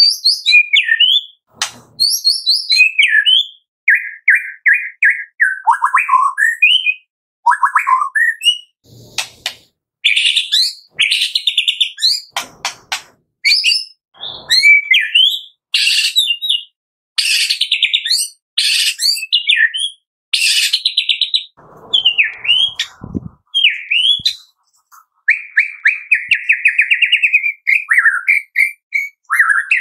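White-rumped shama singing a varied song of clear whistles, quick rising and falling notes and rapid buzzy trills, delivered in short phrases with brief pauses between them.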